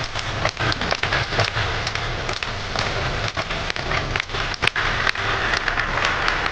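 Audience applauding, many hands clapping at once in a dense, even stream of claps.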